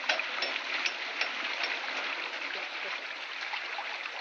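Steady rush of running water, with short sharp ticks about two or three times a second that fade out after a couple of seconds.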